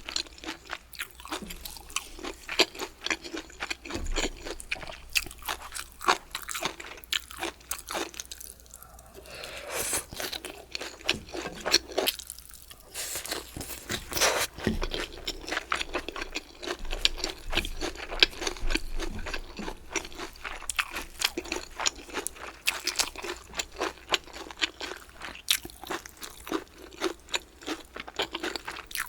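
Close-miked chewing of crunchy bamboo shoots and rice: a dense run of small crunches and clicks with short lulls about nine and twelve seconds in. A steady low microphone hum lies underneath.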